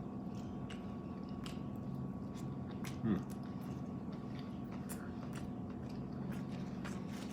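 Close-miked chewing and eating: many small wet mouth clicks and smacks scattered through, over a steady low hum. A brief vocal sound comes about three seconds in.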